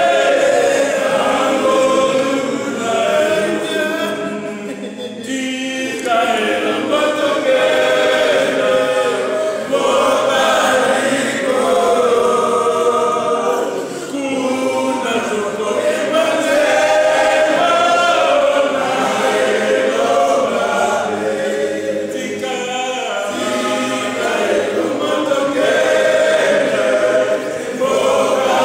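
A choir singing a hymn in long phrases, with brief breaks between them.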